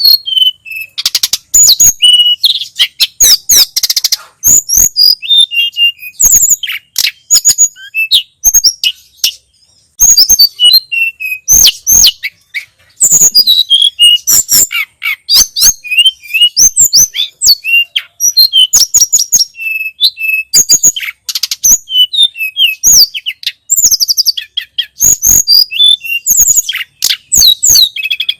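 A tledekan gunung (sulingan gunung) songbird singing loudly: a fast, continuous run of high chirps, slurred whistles and trills in bursts, broken by short pauses.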